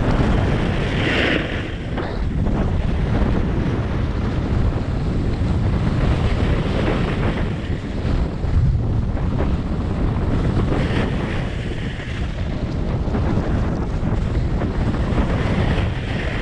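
Wind buffeting a GoPro Hero 7's microphone while snowboarding downhill at speed, a loud steady rumble. Under it, the board's edges hiss and scrape on packed groomed snow, rising briefly about a second in, about 11 seconds in and again near the end as the rider turns.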